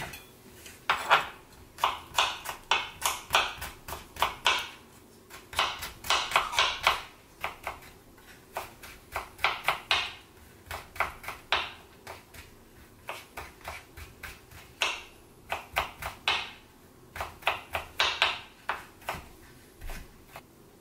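Kitchen knife mincing garlic on a cutting board: quick, irregular runs of sharp chopping taps, a few per second, with short pauses between the runs.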